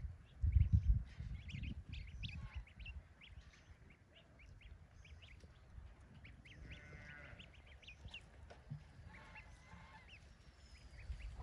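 Ducklings peeping in a busy scatter of short, high calls, with an adult duck giving a harsh, drawn-out honking quack about seven seconds in and fainter ones a couple of seconds later. Low rumbling thumps, the loudest sound, come about a second in.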